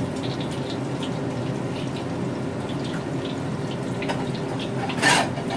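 Coated chicken pieces deep-frying in a wok of hot oil: a steady sizzle with many small crackles and pops. There is a short, louder clatter near the end.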